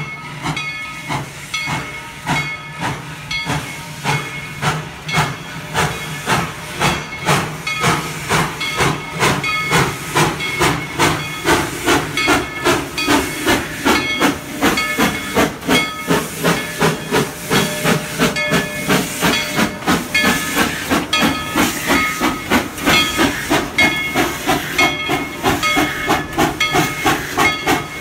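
Steam locomotive No. 190, a narrow-gauge Baldwin 4-6-0, chuffing as it pulls away and runs past close by. Its exhaust beats come in an even rhythm over hissing steam, growing closer together and louder after the first several seconds.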